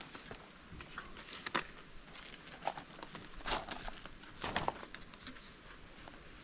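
Scattered rustles and taps of cardboard shipping packaging being handled, a few short sharp ones among fainter handling noise.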